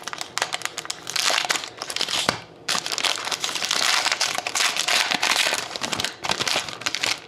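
A wrapper on a pack of hockey trading cards being torn open and crinkled by hand, a dense crackling in uneven bursts with a brief pause about two and a half seconds in.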